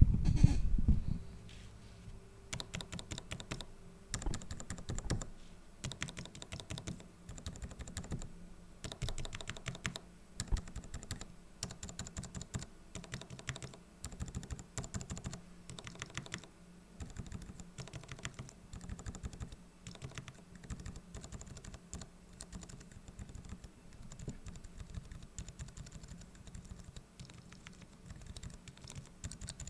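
Keys with DSA-profile keycaps on silenced mechanical switches (Kailh Deep Sea Whale Fall tactile, Kailh Deep Sea Lonely Island linear and a Roselios linear) pressed over and over in an uneven rhythm, giving soft, muted clicks.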